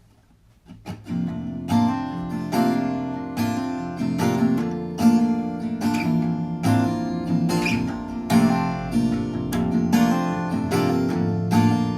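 Acoustic guitar in open D A D G B D tuning with a capo at the third fret, playing a steady intro pattern that comes in about a second in.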